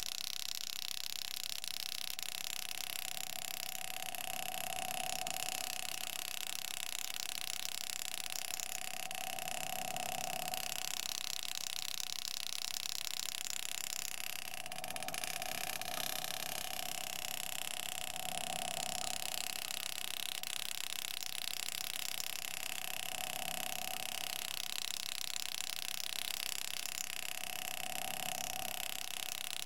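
Engraving graver cutting lines into a nickel coin: a buzz of a second or so comes back about every five seconds, each time a line is cut, over a steady hiss.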